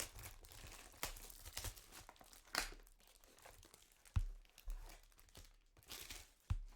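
Foil trading-card pack wrapper being torn open and crinkled by hand, in a run of irregular sharp crackles and rustles.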